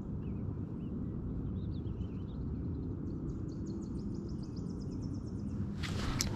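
Lakeside outdoor ambience: a steady low rumble of wind with faint bird chirps, then a bird's even high trill of about ten notes a second. A louder rush of noise comes in near the end.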